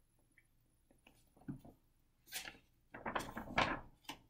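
Paper pages of a picture book being handled and turned: a few faint, short rustles and scrapes, mostly in the second half.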